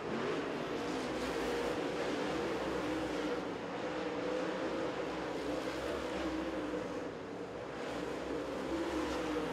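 Dirt Super Late Model race cars' V8 engines running on the track, a steady drone with the pitch wavering slightly as they go around.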